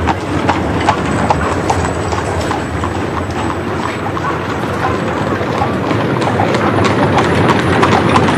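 Horses' hooves clip-clopping on a paved street, a few sharp strikes a second, over a steady bed of street noise.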